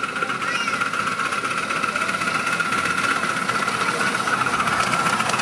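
Miniature steam locomotive hauling a passenger train toward the listener: a rapid, steady chuffing and rattle over a steady high hum, growing gradually louder.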